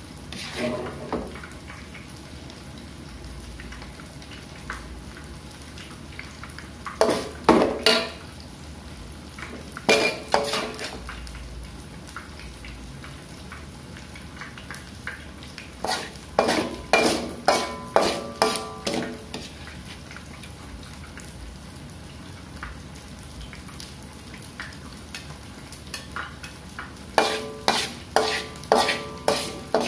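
A metal spatula scraping and knocking against a metal wok in four bursts of rapid strikes, each leaving a short ringing tone, as chilli-sauced eggs are scooped out onto a plate. Oil sizzles steadily underneath.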